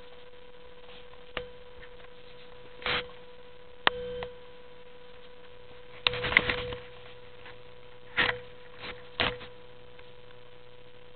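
Steady electrical hum with a handful of irregular clicks and short rustling bursts, the busiest cluster about six seconds in.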